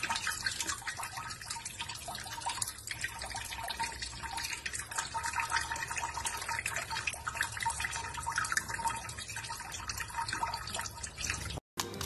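Tap water running into cupped hands and splashing and dripping into a steel sink, steady throughout and cut off abruptly near the end.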